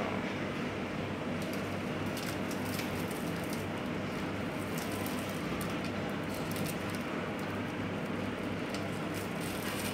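Plastic wrapper of wafer sticks crinkling on and off as the sticks are pulled out and unwrapped by hand, over a steady low hum in the background.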